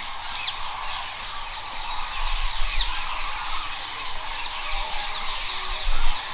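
A flock of birds calling, many short overlapping calls at once. A low rumble runs underneath and swells into a thump near the end.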